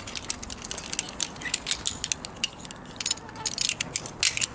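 Carabiners and a rope descender clinking against each other as they are handled, an irregular run of quick metallic clicks and jingles.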